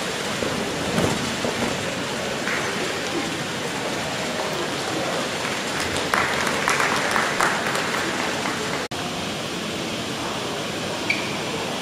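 A steady rushing noise, with a momentary cut about nine seconds in.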